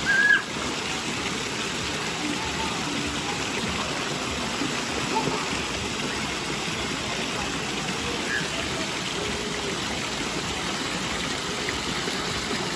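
Steady rush of water from a pool's stone-wall waterfall feature spilling into the pool, with a short loud burst right at the start.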